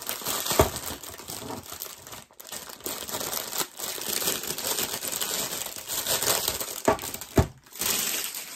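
Clear plastic packaging crinkling and rustling as it is handled, with a few short knocks among the rustle.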